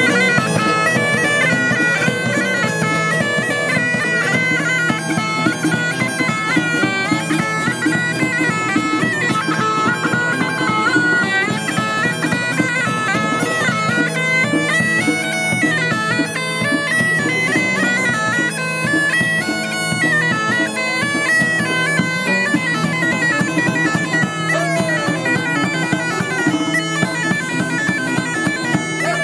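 Bagpipe playing a melody over a steady low drone.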